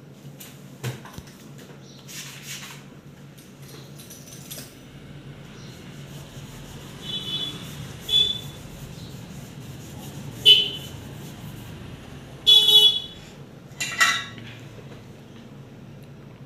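Several short vehicle-horn honks, the loudest ones in the second half, over scattered light clicks and clinks of hand tools and the panel being handled, and a steady low hum.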